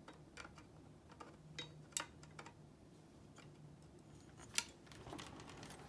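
Scattered small metal clicks and taps as typewriter parts and a hand tool are handled and fitted, the sharpest about two seconds in and again near the end, over a faint steady hum.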